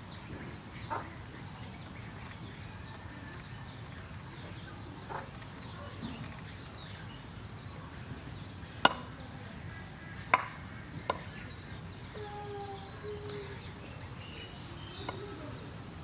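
Goslings peeping softly and repeatedly as they forage, over steady low background noise. Three sharp knocks about nine to eleven seconds in are the loudest sounds.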